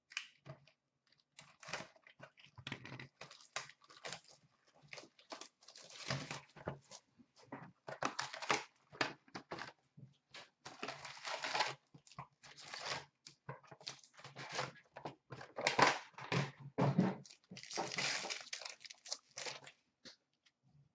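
A box of trading cards being opened and its wrapped packs pulled out and stacked: irregular crinkling and tearing of wrapping, in uneven bursts.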